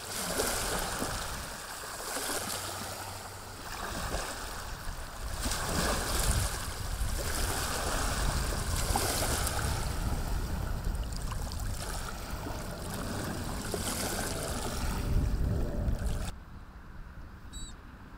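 Choppy lake water washing and lapping in waves that swell and ease every couple of seconds, with wind buffeting the microphone. Near the end it drops away sharply.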